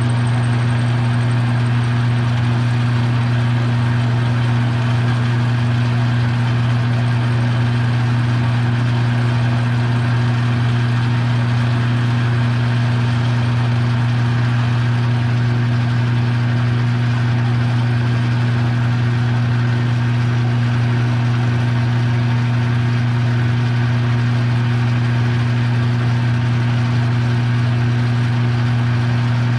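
Metal lathe running steadily with a strong low motor hum, turning down nuts into rings.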